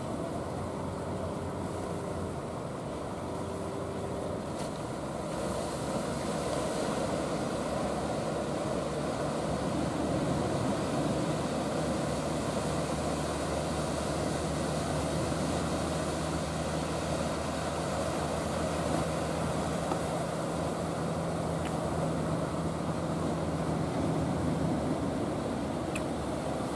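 Wooden fishing boat's engine running steadily as the boat motors past, a low drone that grows a little louder after the first few seconds, over the wash of water and surf.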